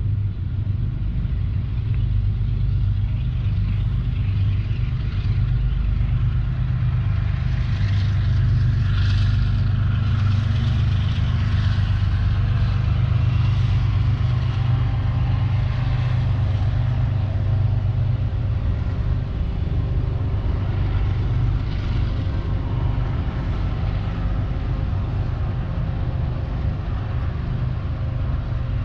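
A train rumbling steadily past, deep and continuous, with higher rattling noise through the middle stretch.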